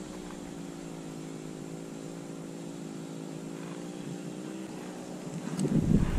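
A distant engine running at a steady pitch with a slight waver. About five and a half seconds in, loud low buffeting on the microphone starts.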